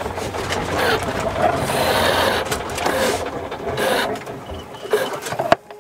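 Small sailboat's inboard engine running with a rattly mechanical clatter, then shut down with the stop pull beneath the engine panel. It cuts out suddenly near the end.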